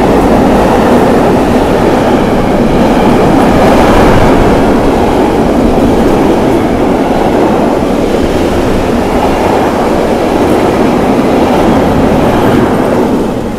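Container freight train's wagons rolling past at close range: a loud, steady noise of wheels on rails that fades near the end as the last wagon goes by.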